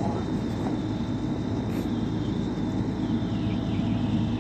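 Heavy truck engine idling steadily, a constant low hum under an even background noise.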